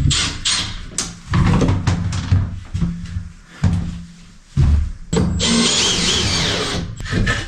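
Knocks and clicks of vinyl flooring planks being handled and fitted in a small room, with a long scrape about five seconds in.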